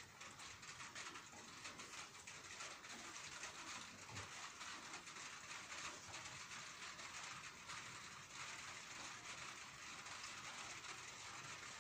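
Light rain falling steadily, a faint even patter made of many small drop ticks.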